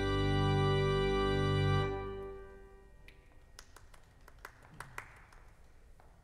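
Church organ holding a final chord that cuts off about two seconds in, its sound dying away in the room's reverberation. Then comes quiet room sound with a few faint clicks and knocks.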